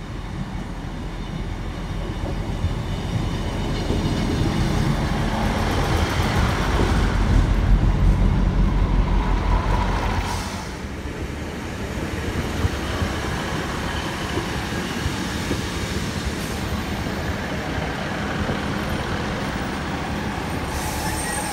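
Diesel multiple-unit trains at a station platform. A unit's engine and wheels rumble louder as it runs past close by, then the sound cuts off suddenly about halfway through. A steadier engine rumble from a Class 155 unit alongside the platform follows.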